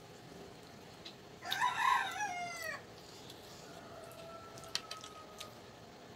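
A rooster crows once, about a second and a half in, a loud call lasting just over a second whose pitch falls at the end. A few faint clicks follow later.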